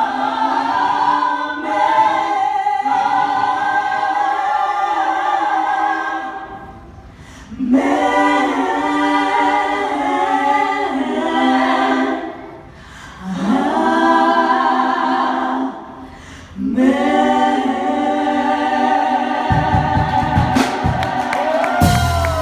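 Vocal group singing a cappella in harmony, long held phrases with short breaks between them. Near the end, cheering with a whoop breaks in.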